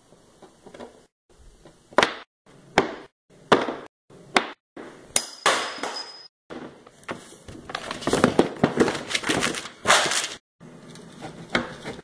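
A quick string of short workshop clips cut together: sharp knocks and taps from hand work on wood, one per clip at first, a brief high ringing tone about halfway through, then a denser stretch of clatter before a last few taps.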